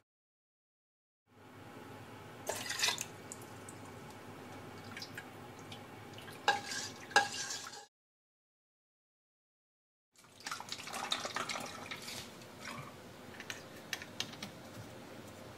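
Red shiso liquid being handled in the kitchen: pouring and stirring sounds with a few sharp clinks of utensil on vessel. The sound is broken by two stretches of silence. Near the end come light clicks as a screw cap is turned onto a plastic bottle.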